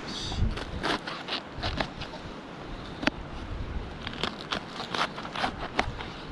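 Fresh cabbage leaves being broken up for the pot, with a run of irregular crisp snaps and crunches.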